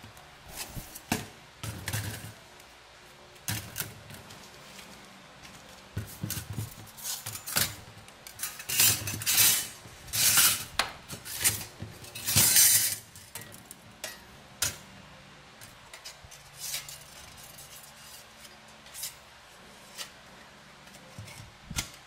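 Thin stainless-steel plates of a flat-pack camping grill clinking, tapping and scraping against each other as they are handled, with a run of louder, longer sliding scrapes in the middle.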